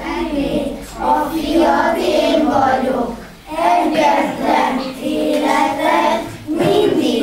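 A class of young children singing a song together in unison, in phrases with short breaks for breath between them.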